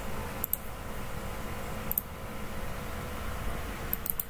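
A few short, sharp computer mouse clicks over a steady low hum of room and computer noise, with one click about half a second in, another about two seconds in, and three close together near the end.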